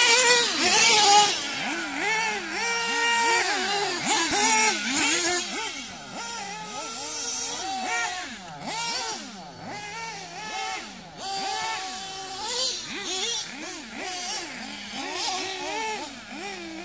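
1/8-scale radio-controlled offroad buggies racing around the track, their motors buzzing high and constantly climbing and dropping in pitch as they accelerate and brake, loudest at the start as one passes close by.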